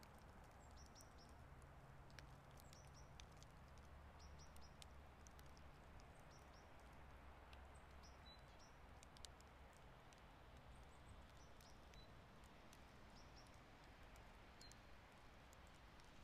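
Near-silent outdoor winter ambience: a faint low rumble with small birds giving brief high chirps every second or so, and scattered light ticks.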